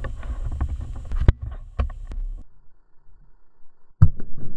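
Welsh corgi puppies nosing and mouthing a small camera, their fur and muzzles rubbing over its microphone: muffled rumbling with sharp clicks and knocks. It goes quiet about halfway through, then a sudden loud bump and more rubbing near the end.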